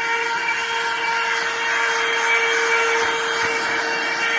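Portable cordless vacuum cleaner running steadily, with a constant whine over rushing air, as its nozzle works over the vehicle's seats.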